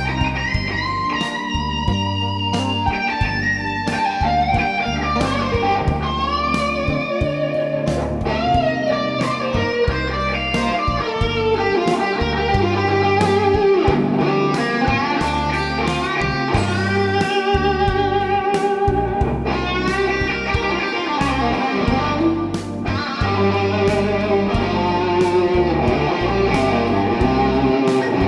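Electric guitar playing a blues-rock lead line, with held notes shaken by vibrato, over a steady low bass backing.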